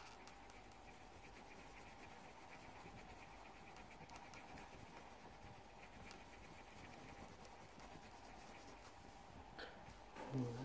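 Soft scratching of a colored pencil shading on paper, with a faint steady hum underneath. A brief, louder handling sound comes near the end.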